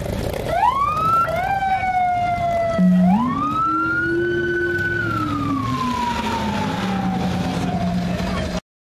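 Police-car siren on a Dodge Magnum wailing: the pitch sweeps up, slides down, climbs again and holds, then falls away slowly, over a low rumble. It cuts off suddenly near the end.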